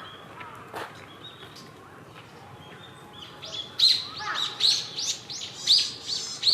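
A small tit calling: a few faint high chirps, then from about three seconds in a fast, loud run of repeated high notes, about four a second.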